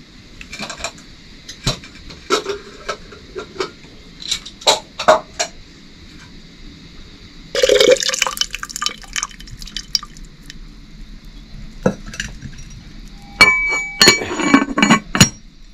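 Metal cooking pots and utensils knocking and clinking, with a short rush of noise about halfway through and a quick run of ringing metal clinks near the end.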